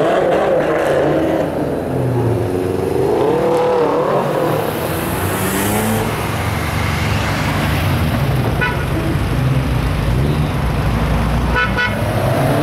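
Classic and performance cars driving slowly past in a line, engines running with one revving up and down, and two short horn toots near the end.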